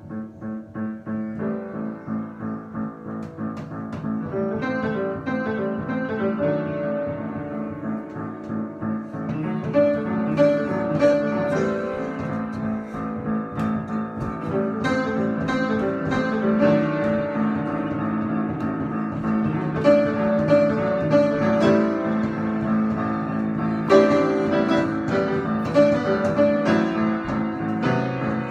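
Improvised piano music, many notes over a held low tone, growing louder and busier over the first few seconds.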